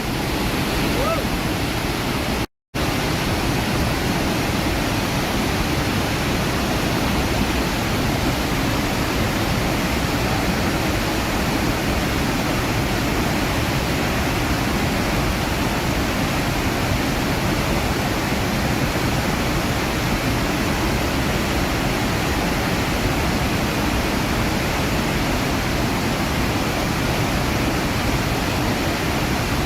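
Iguazu Falls waterfall: a steady, even roar of falling water with no change in strength, broken only by a split-second dropout to silence about two and a half seconds in.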